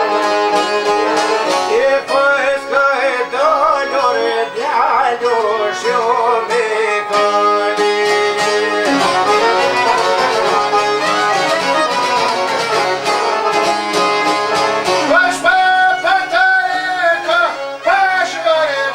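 Folk music playing: plucked strings accompany a fiddle-like melody whose pitch wavers and slides.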